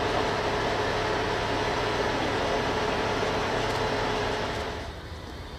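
Heavy truck diesel engine running steadily with a dense mechanical din, dropping off noticeably near the end.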